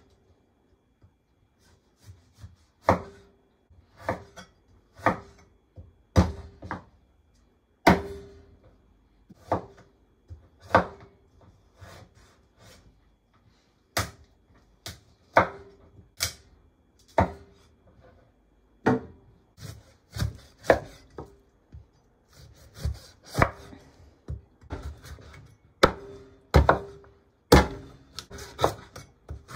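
A meat cleaver chopping through raw lamb ribs on a wooden cutting board: sharp, separate thunks about once a second at an uneven pace, each with a brief ring from the board.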